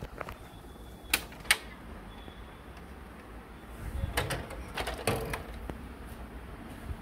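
Plastic parts of a Canon imageRUNNER Advance 6275 copier being handled: two sharp clicks about a second in, then a burst of clattering knocks around four to five seconds in.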